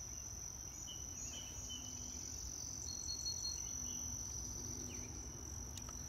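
Steady high-pitched insect chorus from the summer meadow, with a few faint bird chirps over it.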